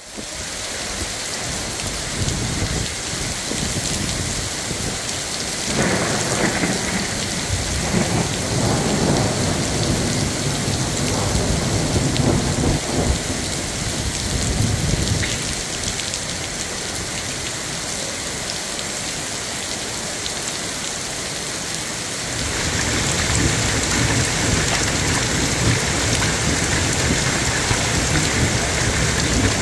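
Heavy rain pouring onto a street and pavement, a steady hiss with a long low roll of thunder about six seconds in. About two-thirds of the way through the rush becomes louder and fuller, as water gushes from a drainpipe onto the flooded pavement.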